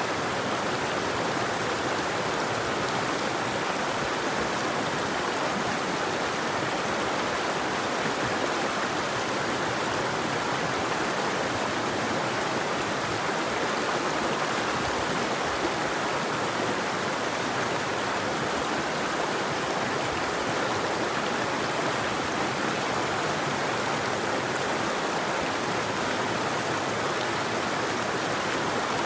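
A river or stream flowing steadily: an even rush of water with no birdsong.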